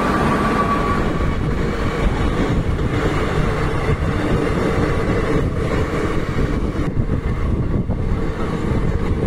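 Passenger coaches of an Indian Railways train rolling past close by at speed: a steady rumble of wheels on rail. A thin high whine fades out about a second in.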